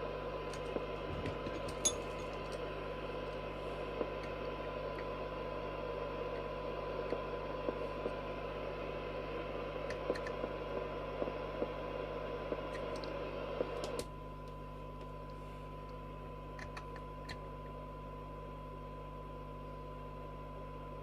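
AKD 4001 4-metre FM receiver's loudspeaker reproducing a very weak signal-generator signal, just under 0.3 microvolt: a steady 1 kHz test tone buried in hiss, with scattered small clicks. This is the receiver sensitivity (SINAD) check made during front-end alignment. About 14 seconds in the hiss drops abruptly and stays lower.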